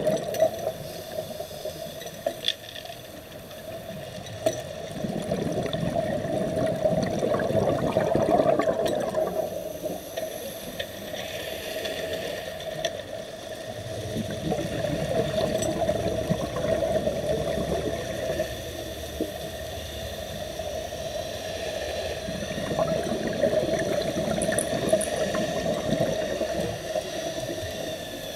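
Muffled underwater noise: swells of rushing water that rise and fall every several seconds, over a steady hum.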